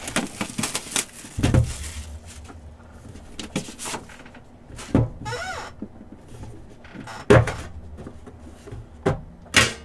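Trading-card packs, cards and box packaging being handled: scattered clicks, taps and knocks, with louder knocks about a second and a half in, about seven seconds in and near the end.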